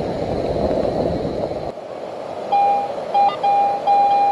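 A rushing noise that cuts off abruptly about a second and a half in. From about halfway, a metal detector's audio tone sounds as a string of beeps at one mid pitch, a target signal as the coil passes over buried metal.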